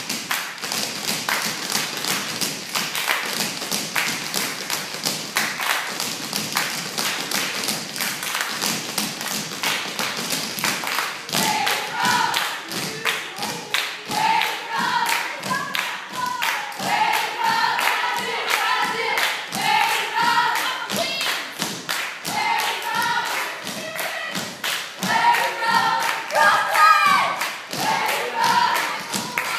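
Tap shoes striking a stage floor in quick, continuous rhythmic clicks as a group of dancers taps together. From about a third of the way in, several voices sing along over the tapping.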